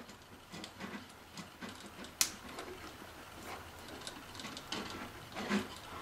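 A red plastic wire nut being twisted by hand onto three wires: faint scraping and small clicks, with one sharper click about two seconds in.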